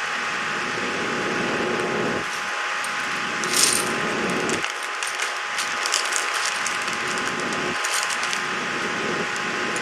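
Plastic keycaps clicking and clattering as they are handled and fitted onto MX switches of a mechanical keyboard. The clicks are light and irregular, the loudest about three and a half seconds in. A steady hiss runs underneath.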